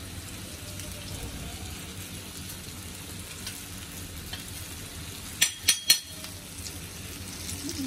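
Oil sizzling steadily under a flour-coated pomfret shallow-frying on a flat iron tawa, its second side now cooking. About two-thirds of the way through come three quick metallic clinks.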